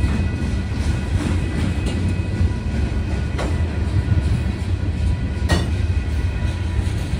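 Freight train's tank and covered hopper cars rolling past: a steady heavy rumble of steel wheels on rail, with two sharp knocks from the wheels about halfway through and a couple of seconds later.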